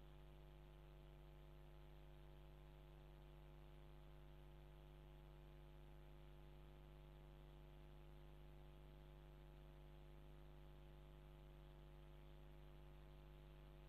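Near silence: a faint, steady electrical mains hum with its overtones, unchanging throughout.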